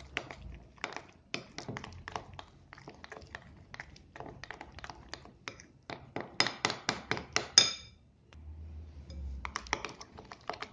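Metal spoon stirring gram flour and curd in a ceramic bowl: a long run of quick clinks and scrapes against the bowl, faster and louder for a while past the middle and ending that stretch on a ringing clink, then a brief pause before the stirring resumes.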